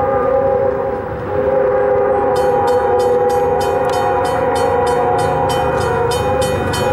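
Lead GE locomotive of a loaded BNSF coal train sounding its air horn in a long steady chord, with a short break about a second in, as it approaches a grade crossing. From about two seconds in, a railroad crossing bell rings steadily at about three strikes a second.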